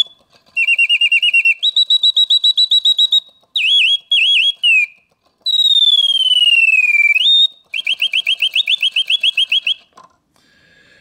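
The mechanical bird of a Reuge singing bird box whistling its song from its bellows-driven piston whistle, set off by the box's alarm clock. It runs through fast trills and warbles, then one long falling whistle with a quick upturn. Two more trilled phrases follow, and the song stops just before ten seconds in.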